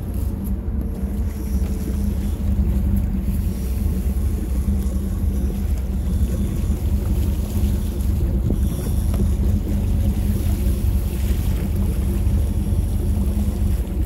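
Fishing boat's engine running steadily at trolling speed, a constant low hum, with wind on the microphone.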